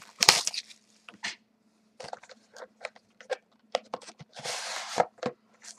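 A cardboard trading-card box being opened and its contents handled: scattered clicks, taps and light rustles, with a longer rustling scrape about four and a half seconds in. A faint steady hum runs underneath.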